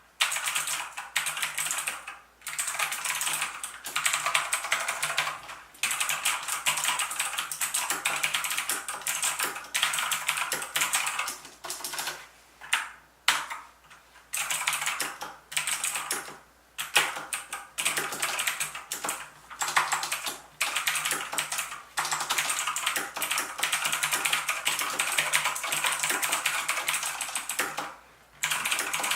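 Fast continuous typing on a MARVO GAMING KG923 mechanical keyboard with blue switches, each keystroke giving the sharp click of the blue switch, broken by a few brief pauses.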